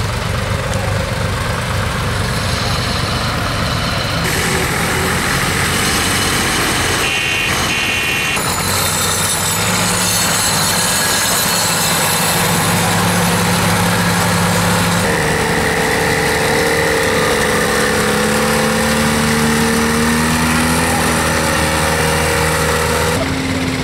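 Vintage farm tractor engines running steadily as several tractors drive past one after another, dust rising from the dirt road. The engine note changes abruptly a few times as a different tractor comes into hearing.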